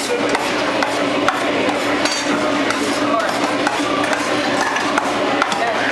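A metal spoon stirring food in a stainless steel steam-table pan, clinking and scraping against the metal, with scattered clinks over the steady din of a busy kitchen.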